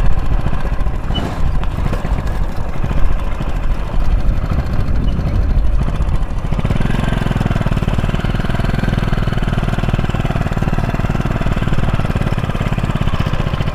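Motorcycle engine running while riding, with wind rumbling on the microphone. About six and a half seconds in, the engine note becomes steadier and more prominent and holds there.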